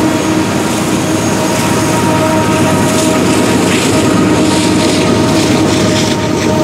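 Freight train of tank cars and covered hoppers rolling past: a steady, loud rumble of steel wheels on rail, with faint steady ringing tones and scattered light clicks over it.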